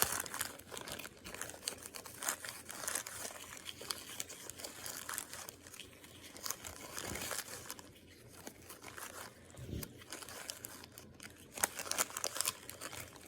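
Slime being shoved and packed down into its container by hand, giving a stream of small, irregular crackles and clicks.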